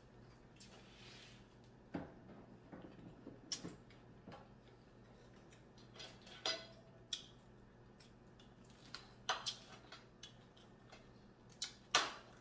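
Scattered sharp clicks and clinks from eating crab at a plate, with shell and dishware knocking: a few isolated ticks every second or two, the loudest near the end.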